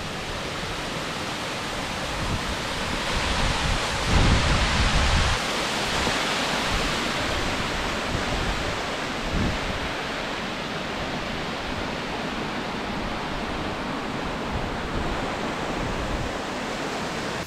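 Steady rushing wind, with gusts buffeting the microphone in low rumbles, heaviest about four to five seconds in.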